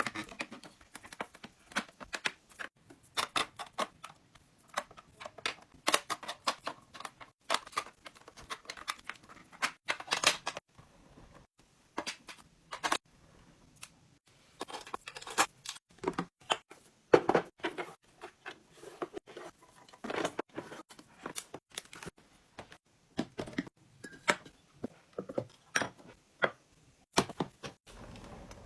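Packaging being handled and opened: irregular rustling and tearing with many short clicks and knocks of items being handled, with brief pauses.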